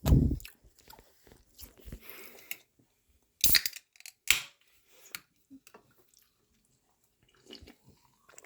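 Close-up chewing and mouth sounds of a person eating a breakfast burrito, with a low thump at the start and two sharp clicks about three and a half and four seconds in.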